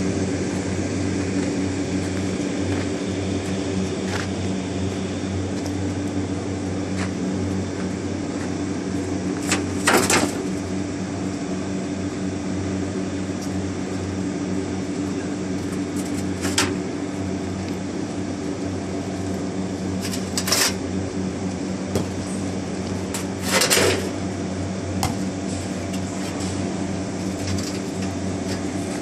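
Small air-cooled single-cylinder engine running steadily, belt-driving a high-volume sprayer pump, a constant mechanical drone. A few short, sharp noises break over it, the loudest near the end.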